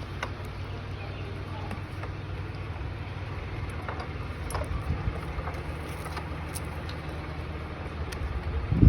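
Steady low machine hum with a few light clicks, and a short loud low rumble near the end.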